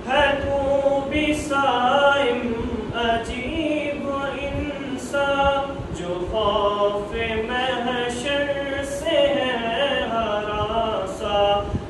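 A group of men singing devotional verses together in a naat chant, sustained sung phrases one after another.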